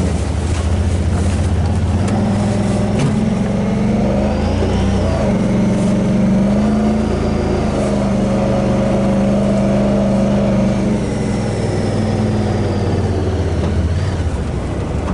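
UTV engine driving across snow: it picks up speed a few seconds in, holds a steady pitch through the middle, then eases off near the end.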